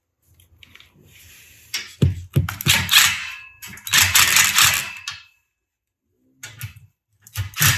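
Cordless drill with a 9/16 nut driver driving bolts tight, in three bursts of a second or so, the last starting near the end.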